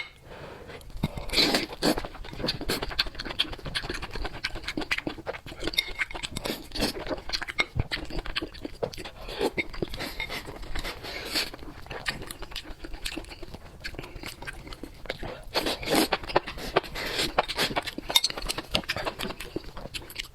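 A person chewing and biting crunchy food: a dense run of crackling crunches, loudest about a second and a half in and again around sixteen to eighteen seconds in.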